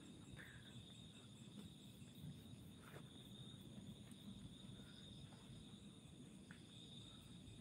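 Near silence with a faint, steady high chirring of night insects, and a few faint ticks.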